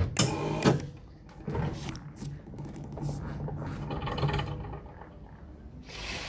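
Scattered knocks and clacks of handling as a glass optical module sphere is moved between a lifting trolley and a metal storage shelf, with a low steady hum through the middle and a soft rustle near the end.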